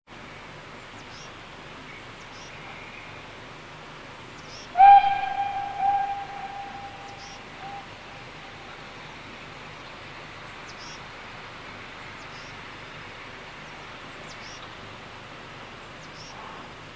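A steam locomotive's whistle sounds once in the distance, about five seconds in: a single clear note that is loud for a moment and then trails away over about three seconds, echoing. Faint bird chirps are heard throughout over a steady outdoor hiss.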